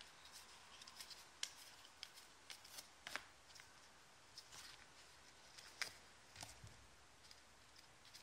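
Faint clicks and slides of 2016-17 Panini Excalibur basketball trading cards being moved one by one through a stack in the hands, with a few sharper snaps.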